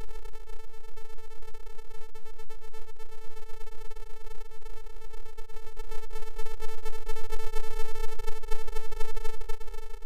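A steady buzzing electronic tone: one unchanging pitch with many overtones, wavering rapidly in loudness.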